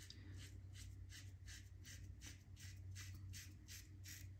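Karve Overlander safety razor scraping through lathered stubble in short, quick strokes, about four or five a second, over a faint low hum.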